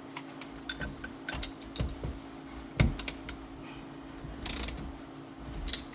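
Scattered clicks, knocks and rattles of seat belt hardware and trim being handled while a car seat belt is fitted, with a short scraping hiss about four and a half seconds in.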